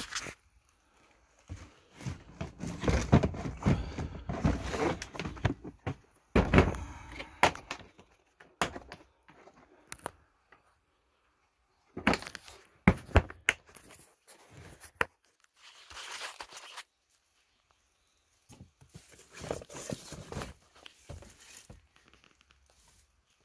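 Plastic tool cases being handled and shifted: latches clicking, hard plastic knocking and scraping, with bursts of rustling, in irregular spells with short pauses.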